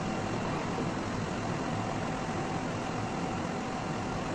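Steady background noise: an even hum and hiss with a faint steady tone, unchanging throughout.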